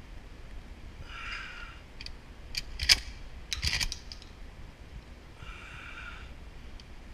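Metallic clicks and clacks from handling a Remington 870 pump-action shotgun, bunched near the middle, with one sharp loud click about three seconds in.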